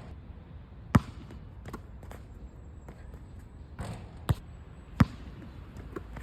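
Basketball bouncing on the court: a handful of separate sharp bounces, the loudest about a second in and two more close together past the middle, with fainter knocks between.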